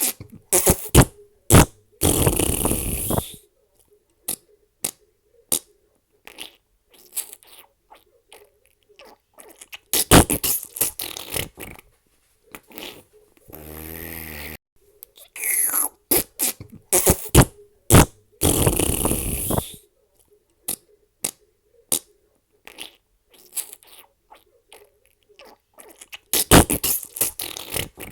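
A string of fart sound effects: short sputtering pops and longer hissing blasts, with one low, buzzing, pitched fart about halfway through. The sequence seems to start over a little past halfway.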